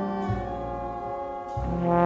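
Slow jazz ballad for brass ensemble: trombone and brass holding soft sustained chords over low bass notes, swelling louder near the end.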